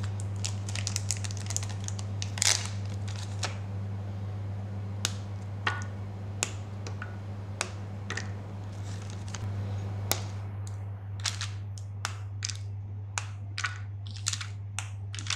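A milk chocolate bar being snapped into squares by hand and the pieces dropped into a ceramic bowl: a string of sharp snaps and clicks, coming thick and fast in the last few seconds, over a steady low hum.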